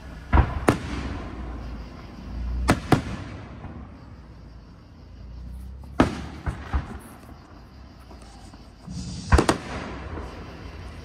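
Aerial fireworks shells bursting overhead: sharp echoing bangs, mostly in pairs, coming about every three seconds.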